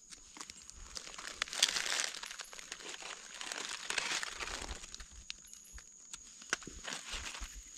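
Dry leaf litter rustling and crackling as gloved hands push through it, in two longer stretches a couple of seconds apart, with scattered small clicks and snaps.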